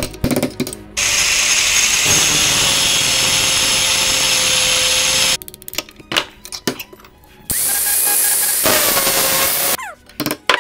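A handheld power tool runs in two bursts, one of about four seconds and a shorter one of about two, with its pitch dipping during the second. Short clicks and knocks of metal work come between the bursts.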